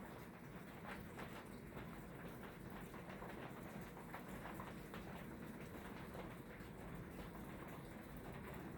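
A 1999 Hunter Original ceiling fan with five blades running, a quiet steady hum from its motor with faint irregular ticking.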